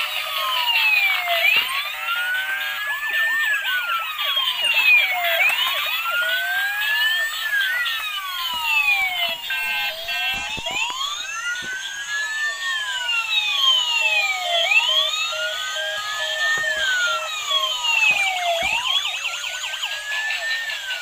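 Electronic sirens of several battery-powered toy emergency vehicles sounding at once. A slow wail rises and falls about every four seconds, overlapped by higher, faster siren sweeps, all thin and without bass.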